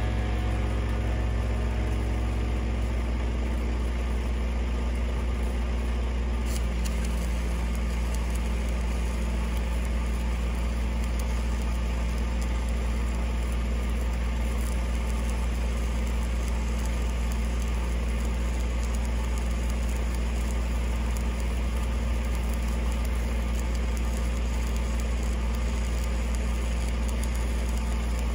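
An engine running steadily at idle, a loud low hum with a constant tone, shifting slightly about six and a half seconds in.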